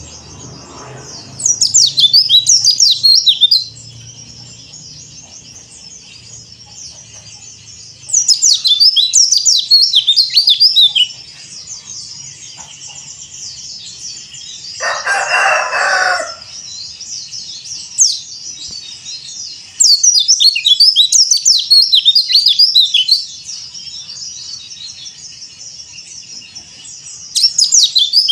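Yellow-breasted Bali white-eye (pleci dakbal) singing in four bursts of fast, high twittering, each a few seconds long. A separate lower call of about a second comes midway.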